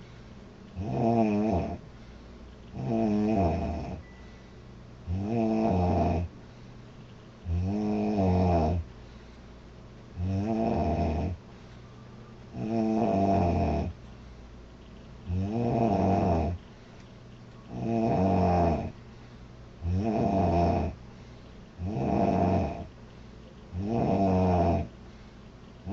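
A girl snoring loudly in a steady rhythm, about one pitched snore every two seconds.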